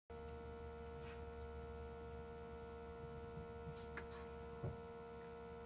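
Steady electrical-sounding hum made of several steady tones, with a few faint ticks and a soft knock a little after four seconds in.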